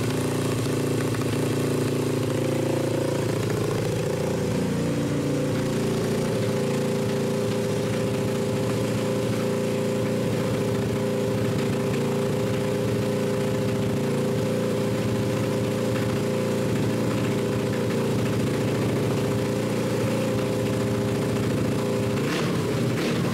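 Suzuki GS500 air-cooled parallel-twin engine idling steadily while it warms up. Its pitch shifts slightly about four seconds in.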